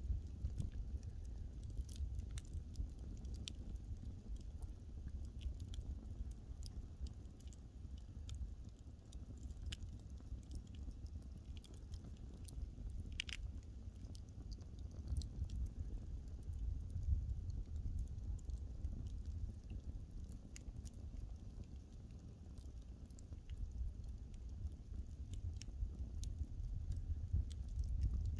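Burning wood crackling in a fireplace: scattered sharp snaps and pops over a steady low rumble, with one louder snap about halfway through.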